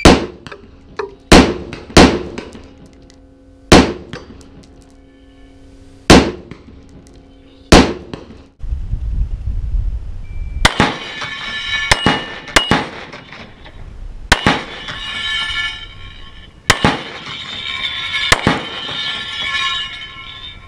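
AR-15-style semi-auto rifle fired six times, as singles and quick pairs over about eight seconds, at a steel spinner target. After that come six more shots heard from beside the target, each followed by the clang and ringing of the steel spinner plates as they swing round.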